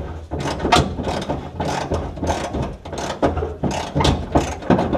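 Hand ratchet wrench clicking in repeated short strokes, about two or three a second, as a bolt is turned under the car.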